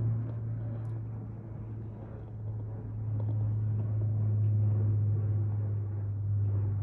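A steady low mechanical hum, a little louder in the middle.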